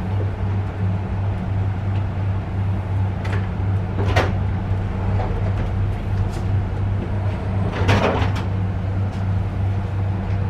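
Steady low hum and rumble of a moving passenger train, with a few short knocks or clatters, the loudest about four and eight seconds in.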